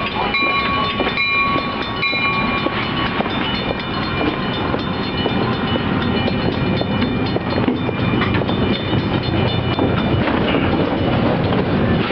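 Metra bilevel commuter train coming to a stop at the platform, its brakes squealing in high steady tones that fade after about three seconds, followed by the steady rumble of the train standing while passengers board, with a low hum near the end.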